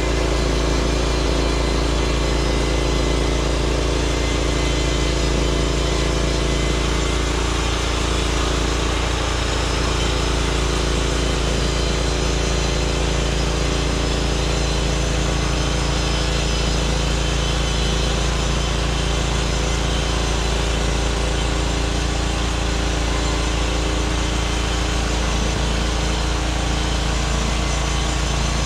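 Norwood MX34 portable bandsaw mill running steadily, its small gas engine under load as the blade saws slowly through a log.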